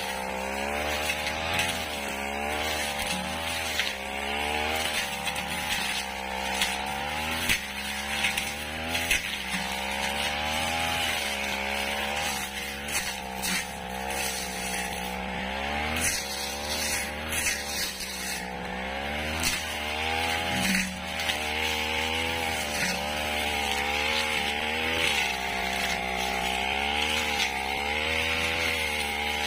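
Backpack brush cutter's small petrol engine running hard while cutting dry grass and weeds, its pitch rising and falling again and again as the load on the cutting head changes, with scattered short clicks.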